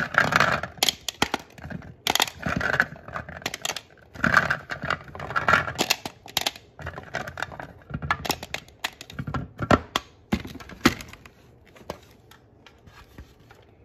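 Small plastic toy fruits clicking and clattering as they are picked up and dropped into a plastic sorting tray's compartments, in irregular bursts, dying down near the end.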